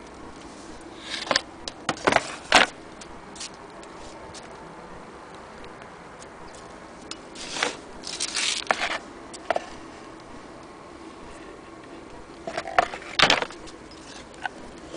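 Handling noise: scattered clicks, knocks and scrapes in three short clusters, about two, eight and thirteen seconds in, over a faint steady hum.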